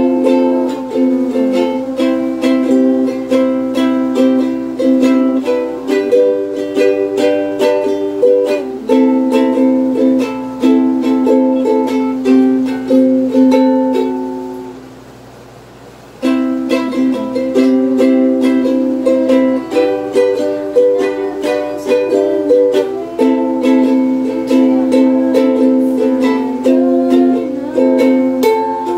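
Muslady 21-inch mahogany soprano ukulele strummed in chords, one stroke after another. About halfway through, a chord is left to ring and fade for a couple of seconds, then the strumming starts again.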